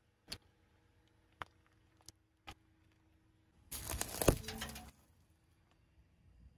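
A car tyre rolls over a small plastic building-block figure and crushes it: about a second of cracking and crunching with one loud crack in the middle, as the bricks break apart and scatter. A few single sharp clicks come before it.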